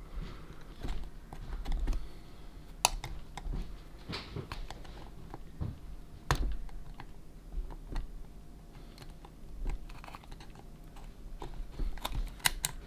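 Scattered light clicks and taps from small radio parts being handled on a workbench, with a quick run of clicks near the end.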